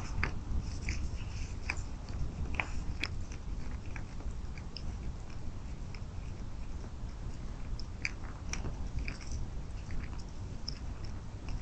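White-tailed deer chewing cracked corn and sweet feed at the feeder: irregular crunching clicks, several loud ones about three seconds in and again around eight seconds, over a steady low rumble.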